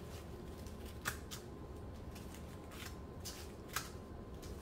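Small zip-lock plastic bags of acrylic diamond-painting drills being set down one by one on a table: faint crinkles and light taps, about five of them spaced out.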